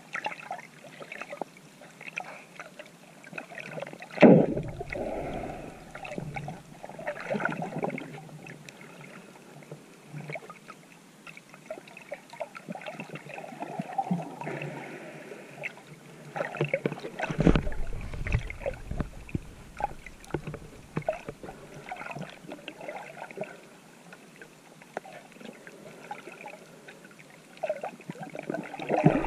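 Water sloshing and gurgling around a GoPro camera housing during a swim, with many scattered small clicks. There are two louder, deeper bursts, about four seconds in and again at about seventeen seconds.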